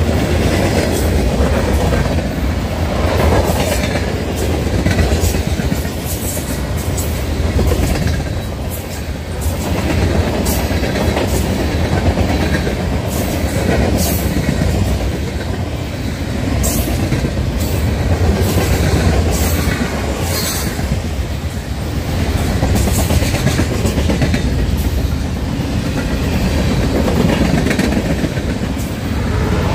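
Freight train of tank cars and hopper cars rolling past: a steady rumble of steel wheels on rail, with irregular sharp clicks and clatter from the wheels and cars.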